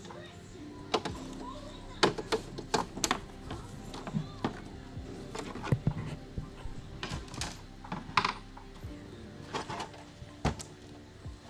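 Scattered sharp clicks and knocks of TV parts (screen panel, board and casing) being handled and fitted, over steady background music.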